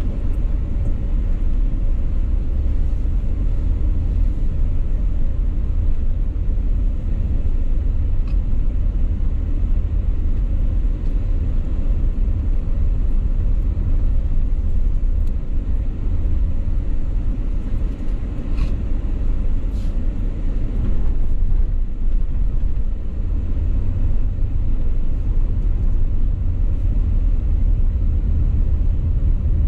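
Car driving, heard from inside the cabin: a steady low rumble of road and engine noise, with a couple of faint ticks about two-thirds of the way through.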